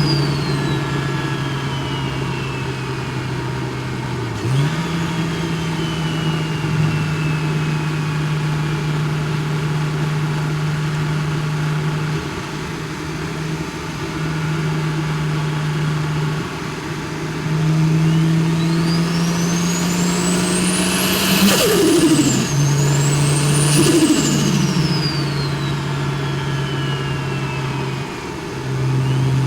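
Big single-turbo BMW N54 straight-six cruising steadily, then pulled hard about two-thirds of the way in: the engine note climbs while the turbo's whistle rises steeply. The engine note drops twice in quick succession, and each time the turbo whistle winds down and falls away.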